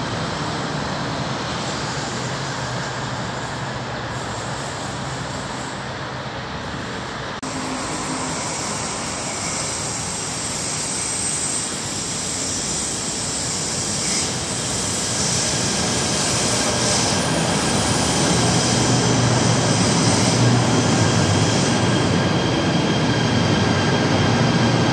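A KTM Komuter electric commuter train pulling into the station, its running noise steady at first and growing louder over the second half as the train comes alongside.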